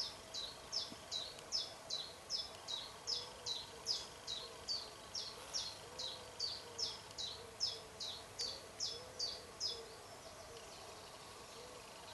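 A bird calling a long series of short, high whistled notes, each falling in pitch, evenly repeated about two and a half times a second; the series stops about ten seconds in.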